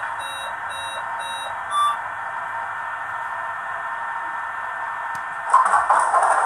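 Sound decoder of an H0 model Stadler KISS train playing repeating warning beeps through its small loudspeaker, about two a second, which stop about two seconds in. A steady hiss follows and grows louder about five and a half seconds in.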